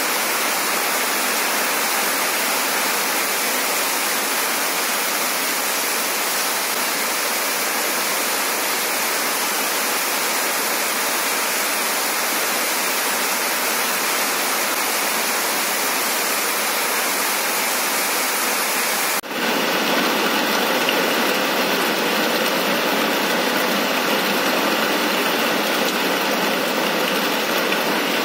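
Heavy rain falling on corrugated metal roofs, with water pouring off the roof edges: a steady, even hiss that turns a little brighter about two-thirds of the way through.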